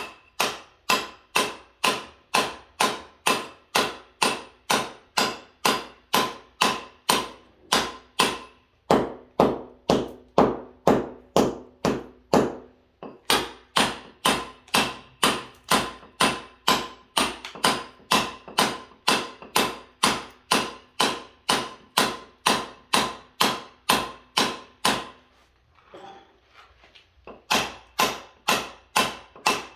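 Hammer blows struck in a steady rhythm, a little over two a second, each with a short ring, as in building work. They break off briefly just past the middle and again for about two seconds near the end, then carry on.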